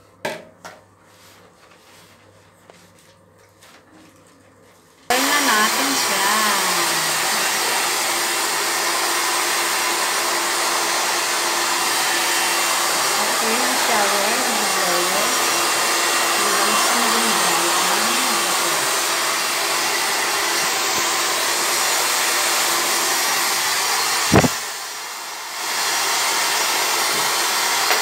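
A pet grooming blow dryer switches on about five seconds in and blows steadily on a wet puppy's coat. Near the end there is a click and the blowing drops lower for a second or two before coming back up.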